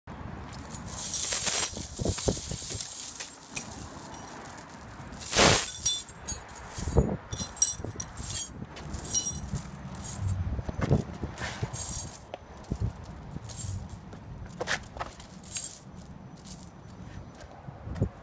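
Studded steel ATV tire chains jangling and clinking as they are lifted, dragged and spread out over concrete. Heavy rattling of the links is loudest in the first few seconds, with another burst about five seconds in, then thins to scattered clinks.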